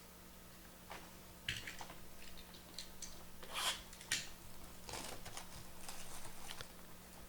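Scattered light clicks and crinkly rustles of trading-card boxes and their plastic wrapping being handled and unpacked.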